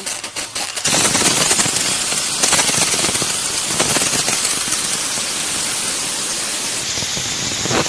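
Gas blasting out of the open end of a deep freezer's internal cooling pipe as it is flushed, a loud hiss. It sputters for the first second, then runs steady.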